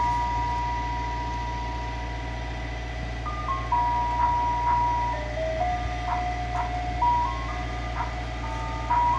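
Ice cream truck's rooftop loudspeakers playing a simple electronic jingle, one note at a time, with one note held for about three seconds before the tune picks up again. A steady low rumble runs underneath.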